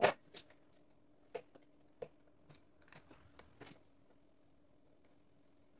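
Sharp metallic clicks and taps, about ten of them at an uneven pace in the first three and a half seconds and the loudest right at the start, from hand tools and loose parts on a homemade five-cylinder radial engine being taken apart at its oil pump.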